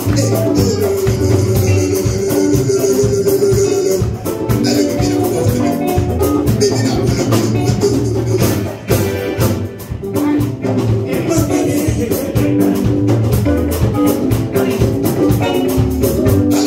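Live band playing: drum kit and hand drum keep a steady beat under electric guitar and keyboard, with a shaker and singing; a long held sung note near the start.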